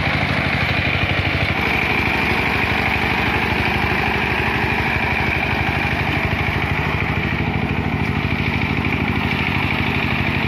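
Two-wheel power tiller's single-cylinder diesel engine running steadily with a fast, even beat as it drives its cage wheels through paddy mud while tilling.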